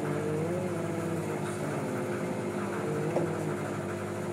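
Fishing boat's engine running with a steady, even hum, a faint tick about three seconds in.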